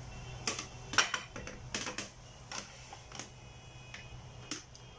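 Knife clicking and knocking against a plastic cutting board as the crusts are cut off a chocolate sponge cake: about ten sharp, irregular taps, the loudest about a second in.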